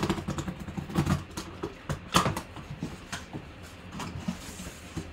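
A taped cardboard box being opened by hand: the tape slit and the flaps pulled open in a run of scrapes, crackles and rustles, loudest about two seconds in.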